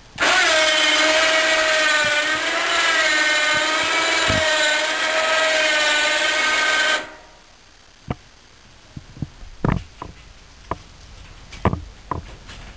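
Electric winch motor on a homemade forklift whining steadily, its pitch wavering slightly, as it hoists an IBC water tote. It stops suddenly about seven seconds in, and a few scattered knocks and clicks follow.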